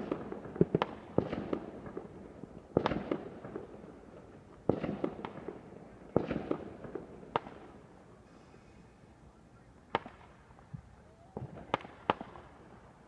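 Fireworks going off: a series of sharp bangs at irregular intervals, some followed by brief crackling, with a lull of a couple of seconds before the last few bangs.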